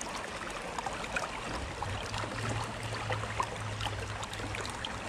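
Shallow river water running and trickling, with scattered small ticks. A low steady hum comes in about one and a half seconds in and fades near the end.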